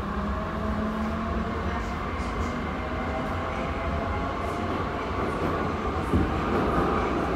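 Interior sound of a modernized Metrovagonmash 81-717 metro car running: a steady low rumble from wheels and track under a thin motor whine that rises slowly as the sound grows louder. There is a single knock about six seconds in.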